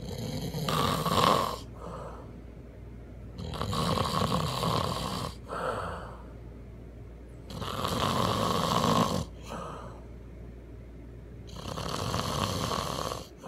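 A man snoring very loudly: four long snores about four seconds apart, each followed by a short, softer breath sound.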